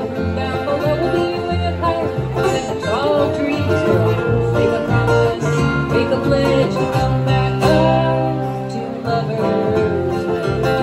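Live acoustic country trio playing a lively tune: two acoustic guitars strumming and picking over a plucked upright bass.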